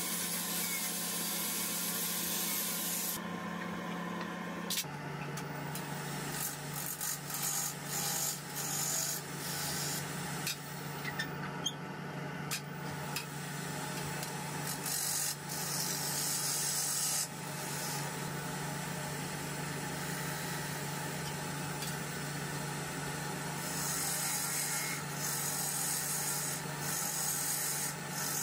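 An angle grinder with a sanding disc sands a zelkova slab for the first few seconds. After that a wood lathe hums steadily while a bowl gouge cuts a spinning zelkova bowl blank, with irregular scrapes and clicks through the middle and a steadier cut later on.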